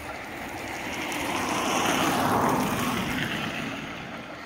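Steam-hauled train passing: a rushing noise that swells to its loudest about two seconds in, then fades.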